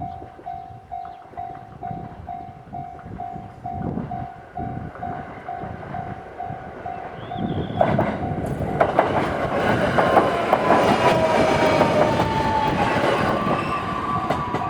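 Japanese level-crossing warning bell ringing about twice a second. About eight seconds in, a train passes over the crossing, its wheels clacking with a slowly falling whine, and drowns out the bell.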